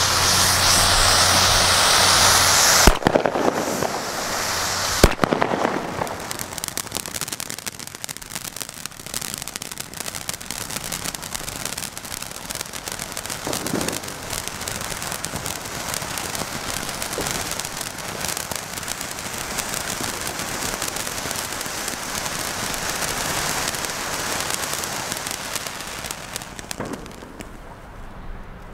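Two small 'Thundercracker' crackling firework fountains burning: a loud hissing spray, two sharp bangs about three and five seconds in, then a long dense crackling that thins out near the end.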